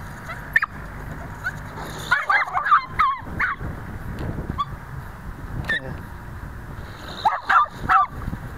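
Dogs whining and yipping in short, wavering bursts, in two clusters with a few single yelps between. They are worked up and eager to be let out of the vehicle.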